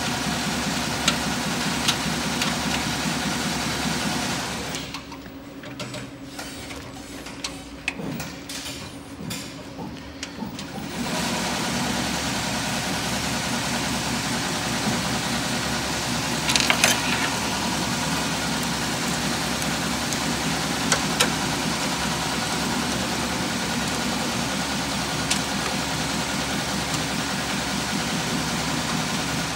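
Steady hum of running machinery that breaks off about four seconds in and comes back about eleven seconds in. A few sharp clicks and rustles come from hands handling cables and connectors in an electrical control box.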